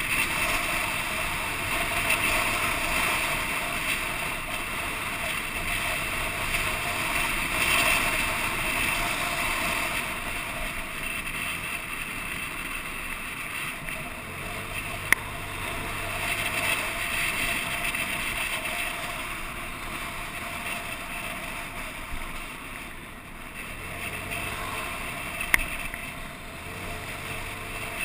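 Steady wind noise rushing over the microphone of a camera moving along a road, with a faint vehicle engine and traffic hum underneath. Two sharp clicks, one about halfway through and one near the end.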